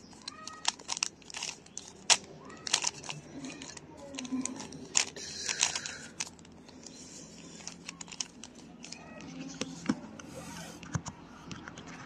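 Plastic 3x3 Rubik's cube being twisted by hand in quick turns: an irregular run of clicks and rattles as the layers turn.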